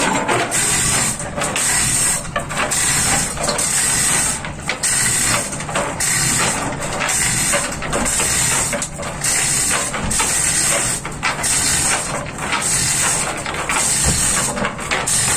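Manual chain hoist being hauled to lift a marine gearbox, its chain rattling and ratcheting in pulls about once a second.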